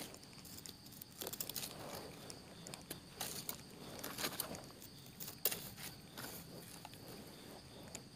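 Faint rustling and crackling of dry leaf litter on a forest floor: scattered soft crunches and clicks come and go. A steady high insect drone sounds behind them.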